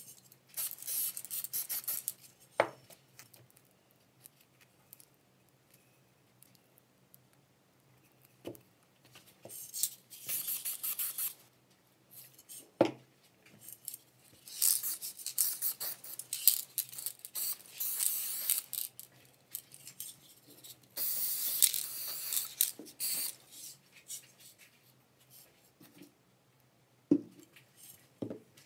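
Aerosol spray paint can hissing in short bursts of one to a few seconds, spraying gloss black paint, with a few sharp knocks between bursts.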